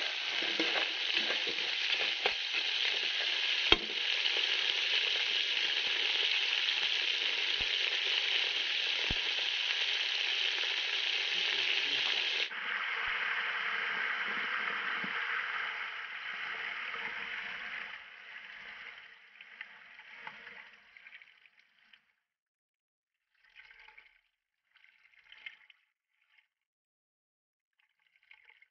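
Blue swimming crabs sizzling in a hot pot as they are stirred with a ladle, with a few sharp knocks of the ladle against the pot. The sizzle drops abruptly about twelve seconds in and dies away as coconut milk is poured over the crabs, leaving near quiet with a few faint splashes.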